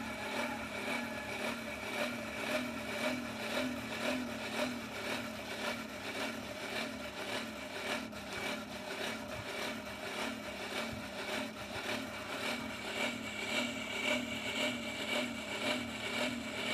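Blower driving air into a charcoal fire, a steady whirring hum that swells and fades evenly about three times every two seconds.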